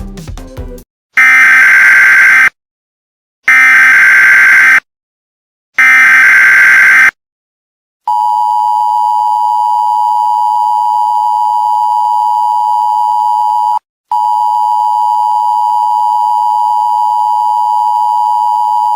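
Emergency Alert System tones: music cuts off, then three loud bursts of SAME digital header data about a second long each, separated by short silences, followed by the steady two-tone attention signal (853 and 960 Hz) with a brief break midway.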